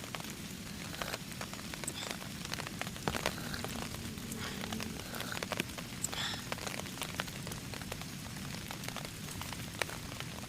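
Steady rain falling, with many individual drops ticking sharply and irregularly on a surface close by.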